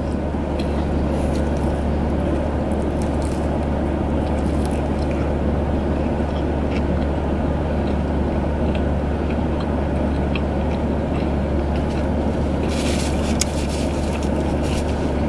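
Steady low hum of a car running, heard inside the cabin, with faint scattered clicks and a brief rustle about 13 seconds in.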